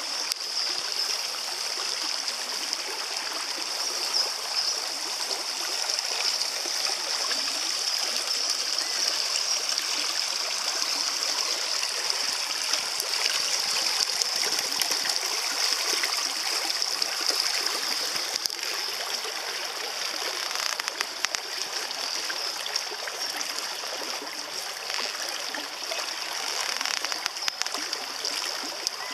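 Shallow stream running over river stones, a continuous steady flow with a high-pitched hiss over it.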